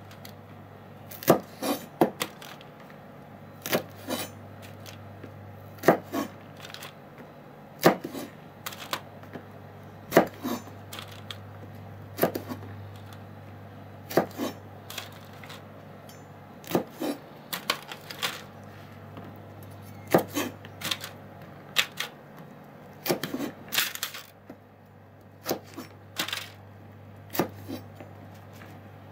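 Kitchen knife tapping on a plastic cutting board as shishito peppers are trimmed and cut: sharp, irregular knocks every second or two, some in quick clusters, over a low steady hum.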